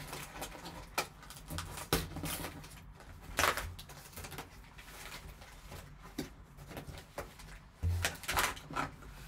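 Foil-wrapped trading card packs and cardboard box filler handled by hand: scattered crinkling and rustling with light taps as the packs are pulled from the box and laid on the table, the loudest rustles about three and a half and eight seconds in, over a low steady hum.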